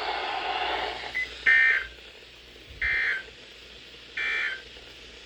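Emergency Alert System end-of-message: three short, buzzy digital data bursts, evenly spaced about 1.4 s apart, signalling that the warning broadcast is over.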